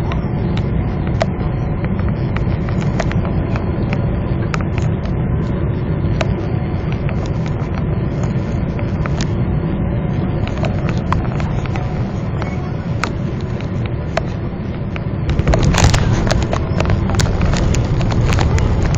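Cabin noise of a twin-engine Boeing 777-300 on short final: a steady engine and airflow rumble with scattered light rattles. About 15 seconds in the main gear touches down and the noise jumps to a louder, rougher rumble as the wheels roll on the runway and the spoilers deploy.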